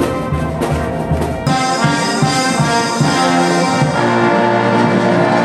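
Brass band playing a march. About a second and a half in, the sound switches abruptly to a different passage.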